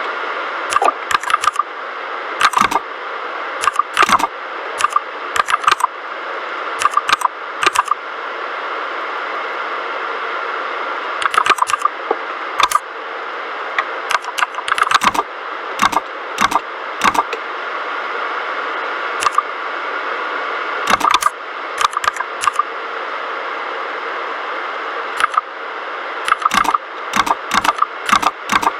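Typing on a mechanical keyboard with red (linear) switches: irregular runs of sharp key clicks and clacks, with pauses of a few seconds between bursts, over a steady hiss.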